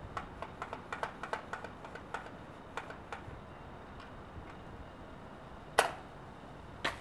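Pump-action foam-missile blaster (Buzz Bee Extreme Blastzooka) being pumped, a quick run of light plastic clicks for about three seconds. Near the end comes one loud sharp crack, then a second, softer click.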